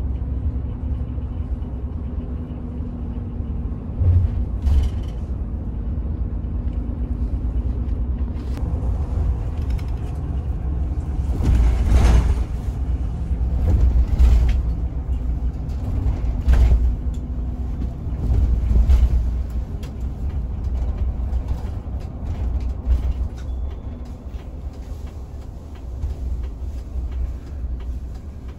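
Inside the cabin of a Hino RM 280 coach bus rolling slowly: steady low engine and road rumble with creaks, broken by several louder knocks and short rushes of noise about 4, 12, 14, 17 and 19 seconds in, the strongest near 12 and 14 seconds.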